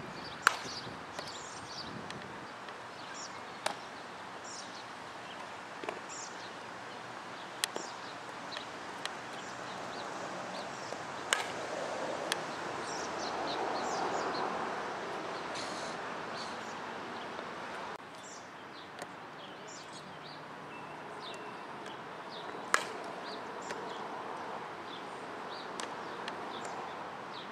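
Open-air ambience of wind noise with birds chirping throughout, the wind swelling near the middle. A handful of sharp knocks stand out, several seconds apart.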